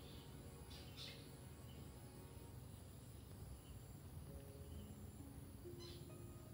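Faint low background rumble with a few brief high chirps, two about a second in and one near the end.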